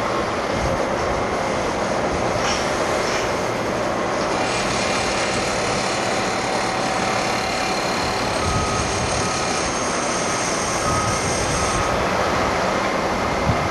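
Steady mechanical noise of running machinery or engines, with a run of short, evenly spaced beeps in the second half.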